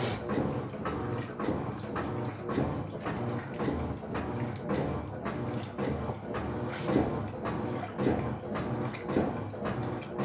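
Electrolux LF75 top-loading washing machine running its wash agitation, a rhythmic churning of about two strokes a second as the agitator swings the load back and forth in the water.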